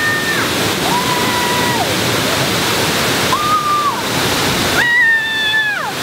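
Waterfall rushing steadily. Over it come four short, held high tones, the last one, about five seconds in, the loudest, each dropping in pitch as it ends.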